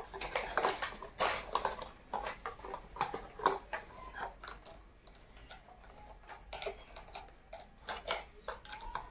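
Hard plastic toy parts clicking and rattling in irregular taps, as a toy pickup truck and a plastic toy wrench are handled together.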